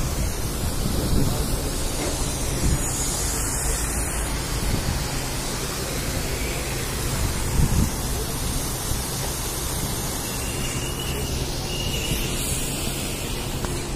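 Steady outdoor city din: road traffic and wind buffeting the phone's microphone in low bumps, with faint voices of passers-by.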